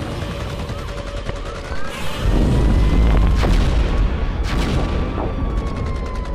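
Music mixed with sound effects of heavy booms and crashes. A deep rumble comes in about two seconds in, with two sharp hits in the middle.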